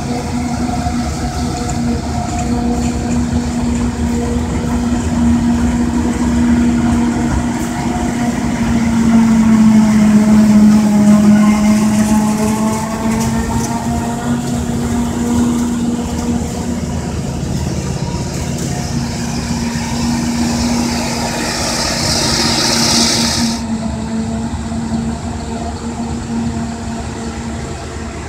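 Claas Jaguar forage harvester chopping maize for silage, with a John Deere tractor hauling the trailer alongside. Heavy machinery drones steadily with a whining tone that dips and rises in pitch about ten seconds in, where it is loudest, and a high hiss cuts off suddenly near the end.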